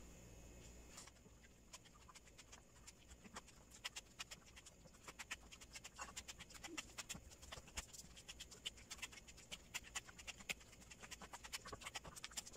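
Faint, rapid, irregular sticky clicks and squelches of a flattened rice and potato dough being kneaded and pressed by gloved hands in a glass bowl, growing busier from about four seconds in.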